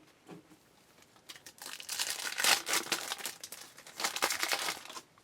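Foil trading-card pack wrapper crinkling and tearing as it is pulled open, in two spells of rustling, the first starting about a second in and the second near the end.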